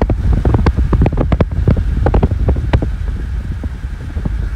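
Wind buffeting the microphone: a heavy low rumble broken by many short crackles and pops.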